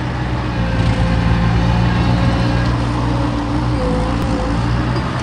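Bobcat machine's diesel engine running steadily while it digs, with a higher tone that dips and recovers about four seconds in.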